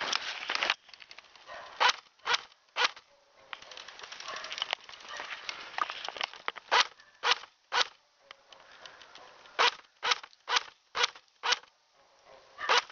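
Airsoft gun firing single shots: sharp snaps about half a second apart, in runs of three, three and five with one more near the end. Footsteps crunch in snow between the runs of shots.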